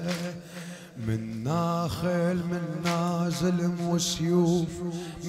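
A man chanting an Arabic Shia lamentation (latmiya) in a wavering, ornamented melodic line, over a steady low drone.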